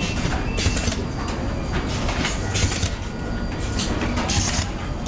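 Factory-floor machinery noise: a steady low rumble with several irregular short hisses, about a second apart at times, and faint steady whines.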